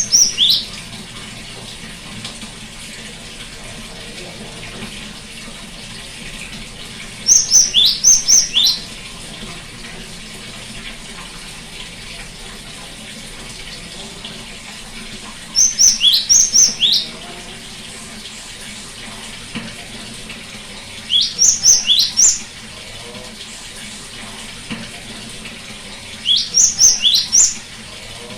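Cinereous tit (gelatik batu, the Asian great tit) singing short bouts of repeated high whistled notes, each note dropping quickly in pitch. The bouts come about every five to eight seconds, four full ones plus the end of one at the start, over a steady background hiss.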